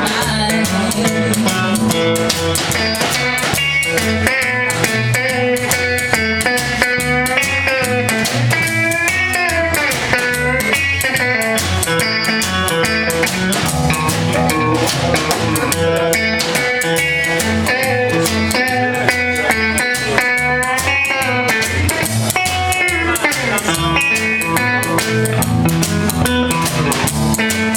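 A band's instrumental break: a lead guitar solo with bent notes over bass and drum kit.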